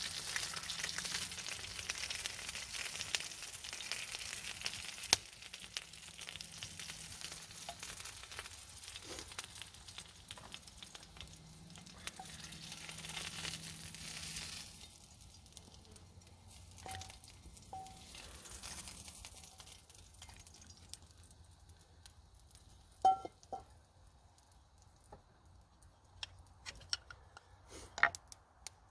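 Bacon and eggs sizzling in a frying pan over a camp fire, a steady crackling hiss that dies away about halfway through. A few sharp knocks and clicks follow, the loudest near the end.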